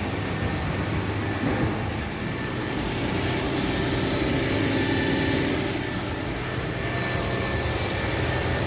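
Nissan VQ40DE 4.0-litre V6 idling steadily, with a faint buzzing whine that almost sounds electrical: the bypass valve in an aftermarket oil filter vibrating very quickly.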